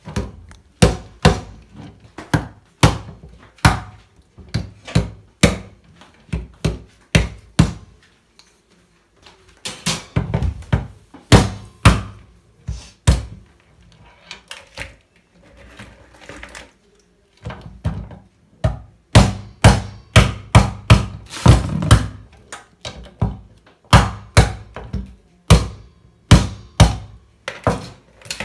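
Runs of sharp knocks on a wooden cutting board as raw crabs are chopped with a kitchen knife and their claws are pounded with a wooden mallet to crack them.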